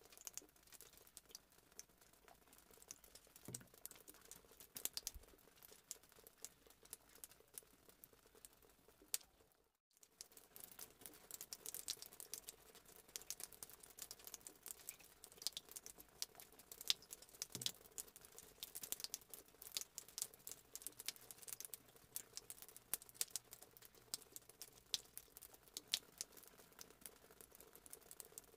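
Faint, scattered clicks and soft taps of a spoon and bowl as cake batter is spooned in layers into a metal tube pan, with a brief silent drop-out about ten seconds in.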